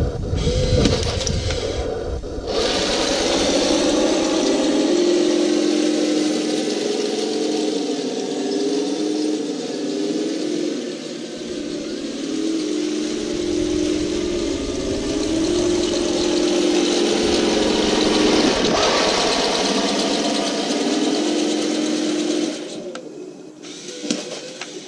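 Radio-controlled Walker Bulldog light tank running: a continuous whirring motor and gear sound whose pitch steps up and down as it drives and turns, dropping away about 22 seconds in.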